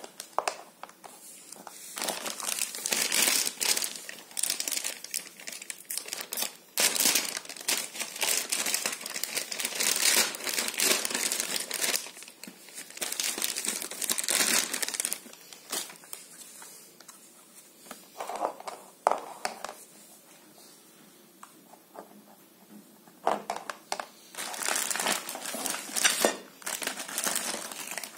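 Clear plastic wrapping crinkling and rustling as a motorcycle handguard is unwrapped from it, in long bursts with a quieter spell just after the middle broken by a few light clicks.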